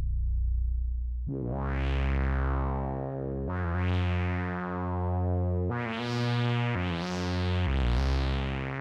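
Electronic synthesizer chords, sustained over a deep bass note. The chord changes about every two seconds, and each one swells brighter and then fades.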